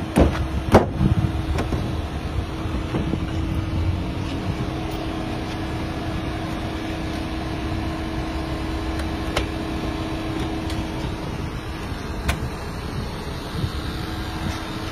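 A steady mechanical hum with one low tone held until about three-quarters of the way through. Over it come a couple of knocks near the start and a few sharp clicks later, as a Volkswagen Beetle's cut-open door is worked by hand through the hole in its panel and swung open.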